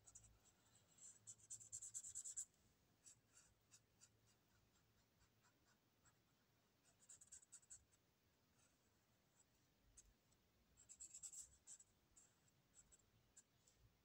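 Ink marker scratching on paper in faint, quick runs of short back-and-forth strokes as a teal area is coloured in. The busiest runs come about two seconds in, about seven seconds in and about eleven seconds in.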